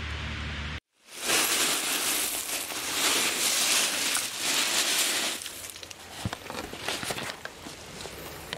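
Footsteps crunching through dry leaf litter and brushing through undergrowth, with loud rustling of the swinging camera against clothing for the first few seconds after a brief break about a second in. The steps then go on as quieter crackles and twig snaps.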